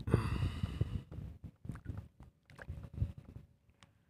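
Low, uneven rumbling buffeting on the microphone, heavy for about the first second, then coming and going in short bursts, with a brief high whine at the very start.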